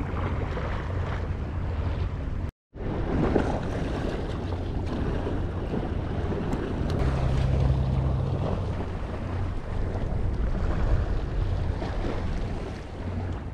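Wind buffeting the microphone with a low rumble, over the wash of sea waves, which cuts out briefly about two and a half seconds in.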